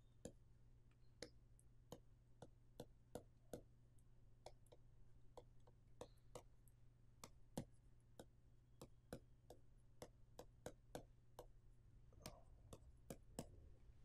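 Faint, irregular ticks of a stylus tip tapping on a pen tablet as letters are handwritten, over a low steady hum.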